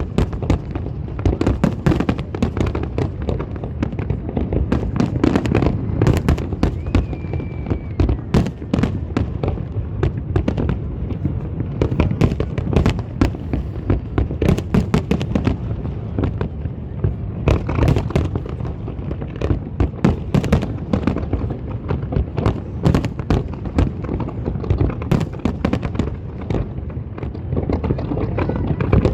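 Aerial fireworks display going off in a dense, continuous barrage: many sharp bangs and crackles a second over a deep rumble of booms.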